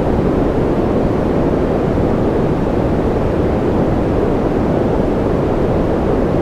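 Steady, unchanging rushing noise from a continuous white-noise sleep track, deep in tone, with no separate drops, clicks or tones in it.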